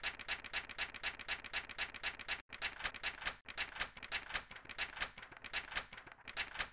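Steady, even ticking, about four to five sharp clicks a second, which cuts out briefly twice around the middle.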